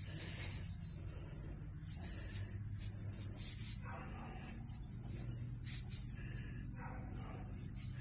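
Steady chorus of insects, a continuous high-pitched chirring that holds unchanged throughout.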